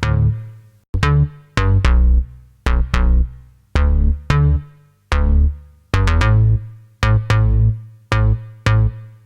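A soloed bass line of short, plucked-sounding notes at about two a second. Each note starts with a sharp attack and a strong low end, and its upper overtones die away quickly.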